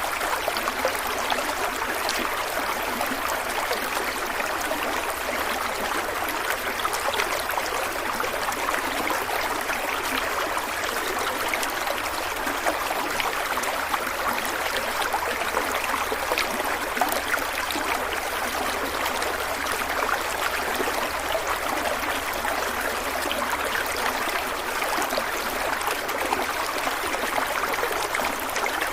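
Stream of water flowing and trickling steadily, with constant splashing and gurgling.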